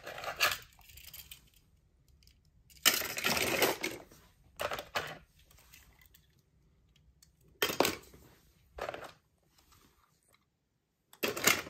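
Toy cars clattering and clinking as they are rummaged through, in about six short bursts with pauses between them.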